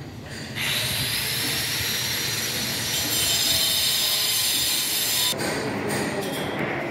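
A power tool running with a loud, steady high-pitched hissing whine. It starts about half a second in and cuts off abruptly after about five seconds.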